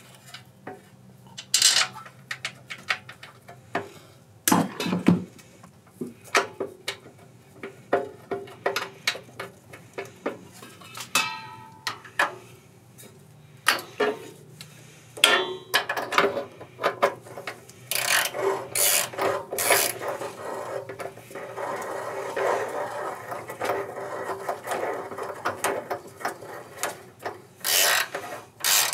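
Hand tools and small engine parts being handled during reassembly: a string of sharp clicks and knocks, a brief squeak, and a longer stretch of scraping and rubbing in the second half.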